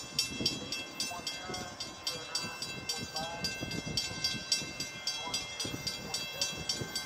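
Railroad grade crossing bell ringing with steady, rapid strikes, about three to four a second, over the low rumble of a train.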